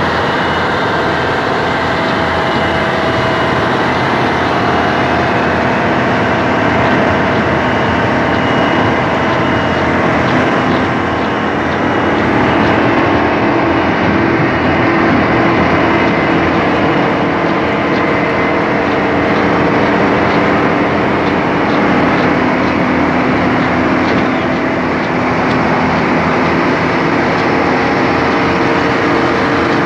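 Salem 1600 coal auger drilling machine running steadily while it bores into a coal seam: a loud, continuous engine drone with a fixed hum.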